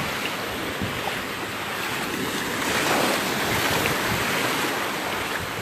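Surf washing in at the shoreline, with wind buffeting the microphone; the wash swells louder about halfway through.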